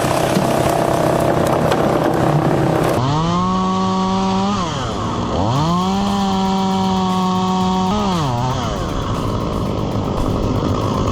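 Two-stroke chainsaw engine revved to full throttle, held, and let back down, twice, with a third rev starting near the end. Before the first rev there are about three seconds of steady, rougher machine noise.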